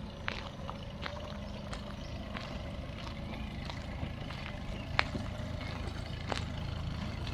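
Outdoor ambience dominated by a steady low engine rumble, with scattered sharp clicks and taps, the loudest about five seconds in.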